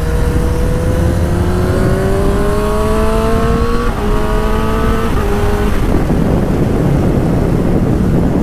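Honda CB1000R's inline-four engine accelerating hard, rising in pitch, with two quick upshifts about four and five seconds in. It then eases off, leaving loud wind rush on the microphone.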